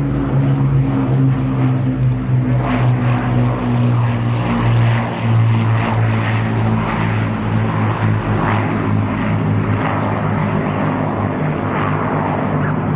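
Rolls-Royce Merlin V12 engine of a single-engined Second World War fighter flying past, a loud steady drone whose pitch sinks slightly as it passes and draws away.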